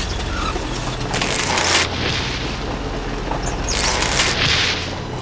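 Cartoon sound effect of a mechanical tunnelling digger boring underground: a steady low machine rumble, with two louder rushing bursts, one about a second in and one near four seconds in.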